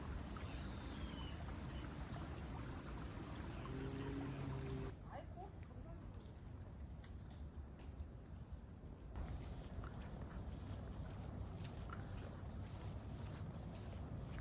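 Evening outdoor ambience: a steady low background rumble with a steady high-pitched insect trill. About five seconds in, a louder high hiss comes in for around four seconds before the thin trill carries on alone.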